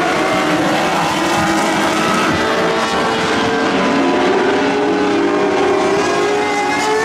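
A field of sprint cars racing on a dirt oval, several engines running hard at once, their pitches rising and falling as the cars come through the turns.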